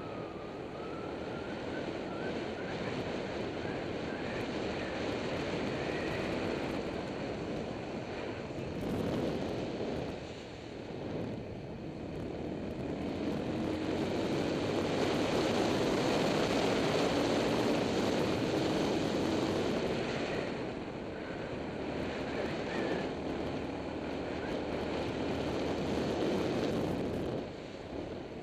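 Motorcycle engine running while riding, mixed with wind rushing over the camera microphone; the engine note rises and grows louder through the middle, then eases off.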